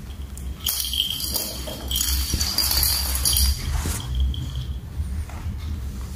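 A bell-toy ball jingling and rattling as cats bat it about. The jingling starts just under a second in and stops about four seconds in.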